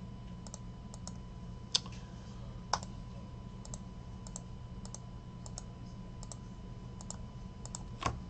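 Computer mouse and keyboard clicks: a string of short sharp clicks, many in quick pairs, with a few louder ones, over a faint steady hum.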